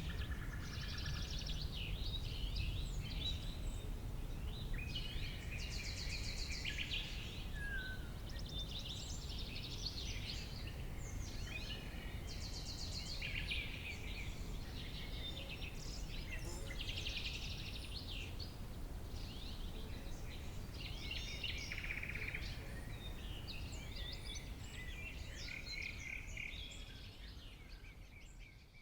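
Summer meadow ambience: many small songbirds singing and calling at once, with fast trills and chirps, over a steady low rumble. It fades out near the end.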